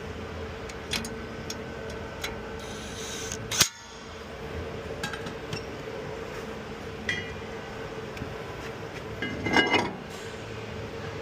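A car running with a steady drone, broken by scattered sharp clicks and pops: one loud crack about three and a half seconds in and a short crackling creak near the end. This is the cracking and popping noise heard while turning, which is not always a CV axle.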